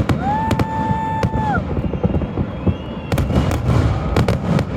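Fireworks finale: a rapid, dense run of bangs and crackling reports, thickest near the start and again in the last two seconds. Early on a single whistle rises, holds steady for over a second, then drops away.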